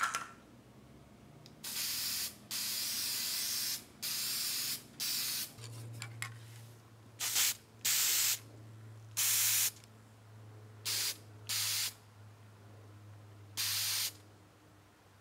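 Aerosol can of Rust-Oleum clear lacquer spraying in about ten short bursts of hiss, each a fraction of a second to about a second long, with short pauses between them.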